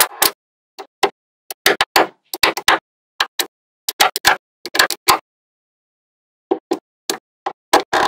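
Small magnetic balls clicking sharply against each other as strips and panels built from them are snapped together and pressed into place, in quick clusters of clicks with a pause of over a second in the middle.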